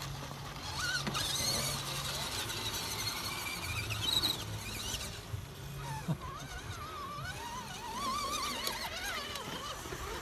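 Electric motors of RC rock crawlers whining as they climb a boulder, the pitch rising and falling with the throttle.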